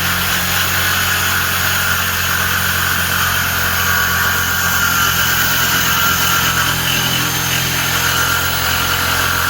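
Electric jigsaw cutting through a kitchen countertop along a marked line, its motor running steadily at full speed.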